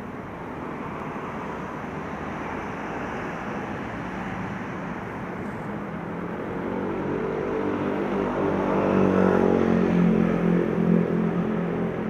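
A road vehicle's engine over steady background noise, growing louder from about halfway, its pitch rising and then easing as it peaks near the end.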